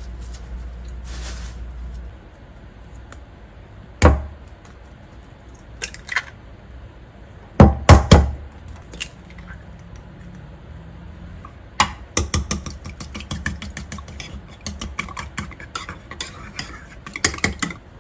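Kitchen handling sounds: a few sharp knocks of dishes or containers being set down, the loudest a cluster about eight seconds in, then a long run of quick light clicks and taps of utensils against a dish.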